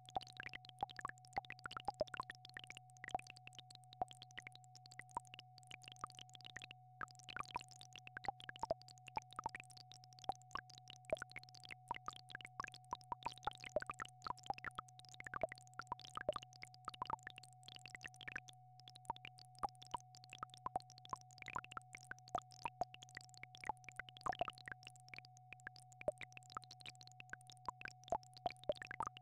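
Synthesized healing-frequency tones: a steady mid-pitched tone and a lower hum hold unchanged, with short blips and plops scattered irregularly over them.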